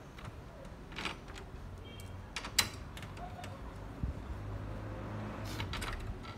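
A hand tool working the screws and plastic clips of a Toyota Hilux Revo's front grille: scattered clicks and taps, the sharpest about two and a half seconds in, over a low steady hum.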